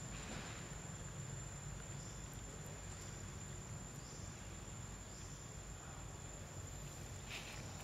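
Steady high-pitched drone of insects, with a few faint brief scratchy sounds, the clearest near the end.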